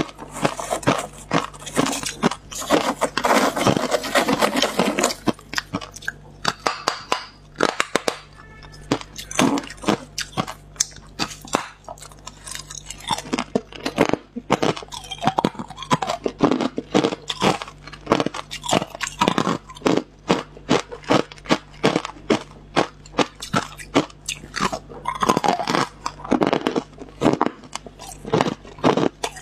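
Hard clear ice being bitten and chewed close to a clip-on microphone: dense crunching for the first few seconds, then sharp cracks and crunches at irregular intervals, thickening again in two later runs.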